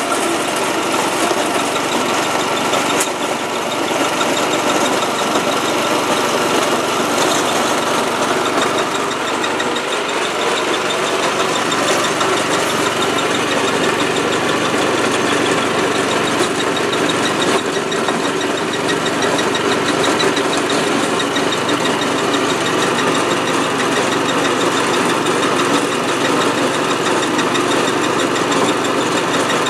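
Small engine-driven jaw crusher running steadily while dump rock is fed in and crushed for samples.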